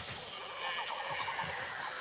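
Cartoon creature sound effect: a warbling, whinny-like animal call about half a second in, over a run of soft low thuds.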